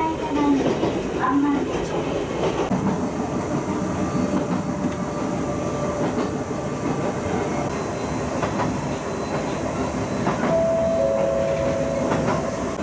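Ichibata Electric Railway train running along the track, heard from inside the passenger car: a steady rumble of wheels on rails with occasional knocks.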